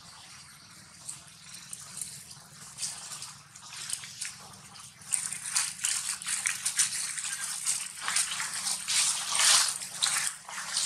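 Dry fallen leaves crackling and rustling under a long-tailed macaque as it forages and moves about. The crackles come in quick irregular bursts, growing denser and louder about halfway through.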